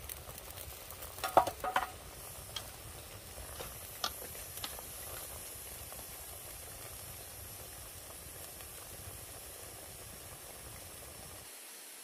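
A pot of chopped wild bulbs boiling over a wood fire with a steady hiss. Chopsticks knock against the pot a few times in the first few seconds, loudest in a quick cluster between one and two seconds in.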